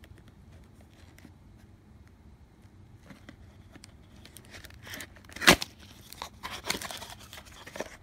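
Cardboard product box being handled and opened: faint light taps at first, then louder rustling and crinkling from about halfway through, with one sharp snap about five and a half seconds in.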